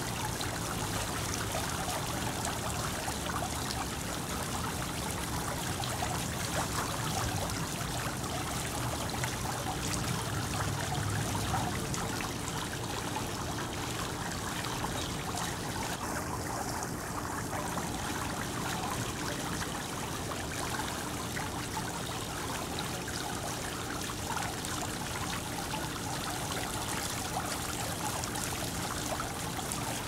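Water fountain splashing: water falls from the column and spills over the rim of a stone bowl into the pool below, a steady, unbroken splashing with many small drops hitting the water.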